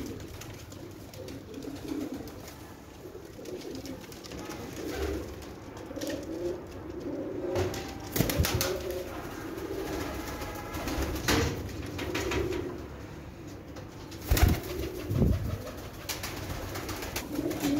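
Domestic pigeons cooing over and over, several birds calling in turn. A few sudden thumps break in, the loudest about three-quarters of the way through.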